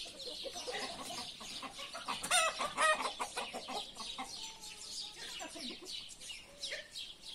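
Flock of free-range hens and roosters clucking, with one louder, drawn-out call about two seconds in.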